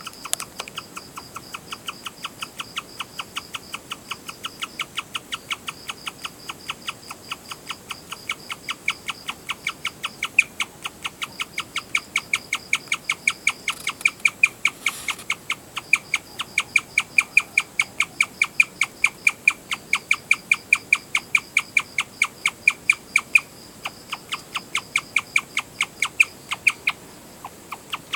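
Guinea pig chirping: a long run of short, high, bird-like chirps repeating evenly at about two to three a second, with a brief pause near the end.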